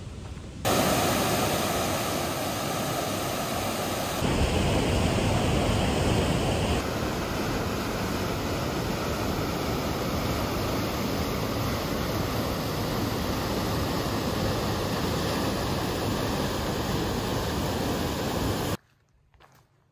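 Steady rushing water, full and loud, in three stretches that change abruptly one to the next. It cuts off suddenly near the end.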